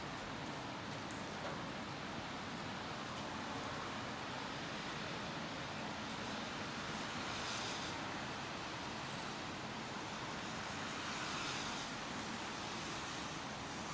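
Steady rain falling, an even hiss, with two swells of louder hiss, one about halfway through and one near the end.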